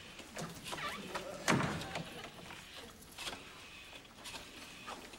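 A domestic door being pushed shut, closing with a thud about a second and a half in, followed by a few lighter knocks.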